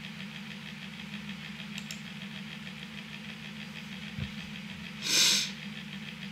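A steady low machine hum, with a faint knock about four seconds in and a short loud hiss about five seconds in.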